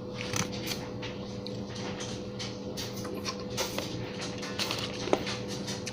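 Someone eating fried chicken wings: scattered small clicks and smacks of chewing and handling food, over a faint steady hum.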